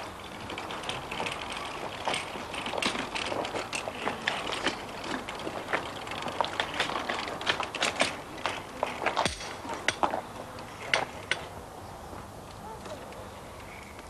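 Metal stretcher trolley wheeled over a paved path, its frame and wheels rattling and clicking. The rattling thins out near the end as the trolley comes to a stop.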